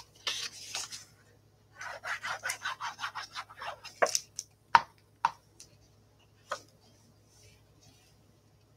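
A liquid glue bottle's tip rubbed quickly back and forth across a strip of patterned cardstock, about six strokes a second, followed by a few sharp taps as the bottle and paper pieces are set down on the table.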